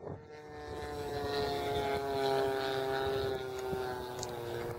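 Radio-controlled model aeroplane flying past, its engine and propeller giving a steady droning tone that grows louder toward the middle and slowly drops in pitch as it goes by.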